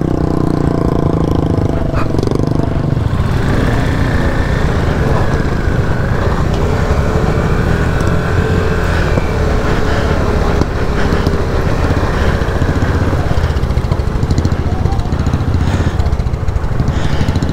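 Motorcycle engines running steadily at low revs: the KTM RC390's single-cylinder engine under the camera, with other bikes and a van nearby, as they creep through a water crossing.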